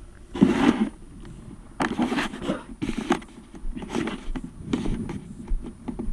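Scraping and rustling handling noise on a model glider's onboard camera as the model is carried over grass. The bursts come irregularly, about once a second, the loudest about half a second in.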